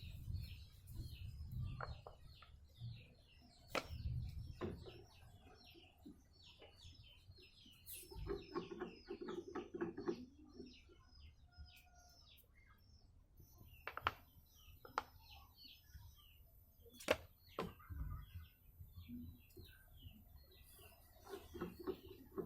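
Small birds chirping over and over, many quick falling chirps, with a few sharp clicks or knocks standing out, the loudest about two-thirds of the way in.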